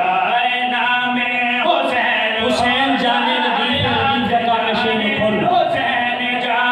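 A man chanting a devotional verse (qasida) into a PA microphone, with long held and sliding notes, loud in a reverberant hall.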